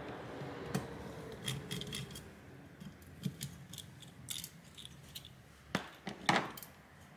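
Light clicks and taps of a graphics card's plastic fan assembly and its cables being handled, with a louder rattling knock near the end.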